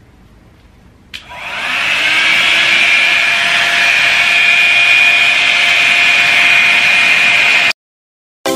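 Multifunction hot air brush (hair dryer brush) switched on at its first heat setting: a click about a second in, the motor spins up with a rising whine, then runs steadily until it cuts off suddenly near the end.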